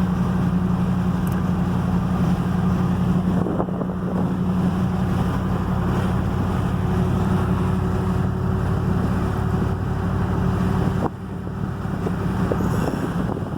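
Vehicle engine running with a steady low drone, heard from inside the cab; the sound drops suddenly about eleven seconds in.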